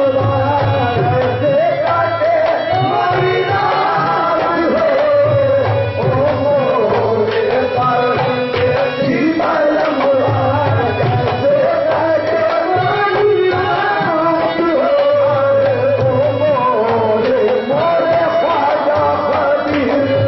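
Live qawwali music: a wavering sung melody over tabla drumming.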